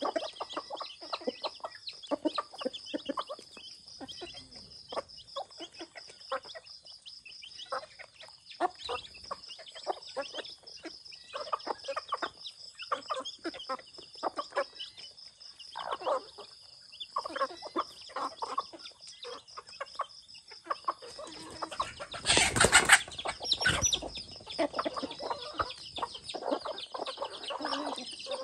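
Flock of chickens, roosters, hens and chicks, calling in many short bursts over a steady high-pitched drone. About three-quarters of the way through comes a loud noisy burst lasting about a second.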